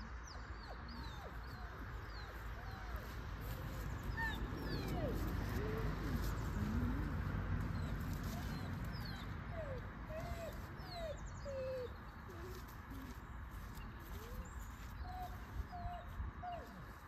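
Birds calling: scattered high chirps and many short rising-and-falling calls, over a steady low rumble that swells in the middle.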